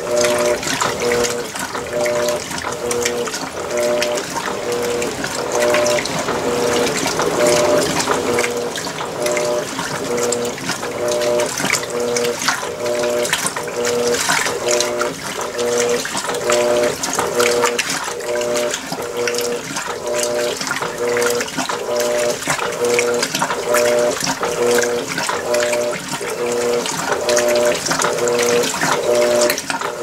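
Electrolux LWI13 top-load washing machine agitating a load in water: the motor hums in short, even pulses, about one and a half a second, as the drum swings back and forth, over a steady slosh of water.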